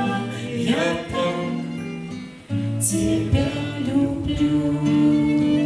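Voices singing together to acoustic guitar accompaniment, a song in harmony. About two and a half seconds in, the sound briefly drops away, then the guitar and voices come back in.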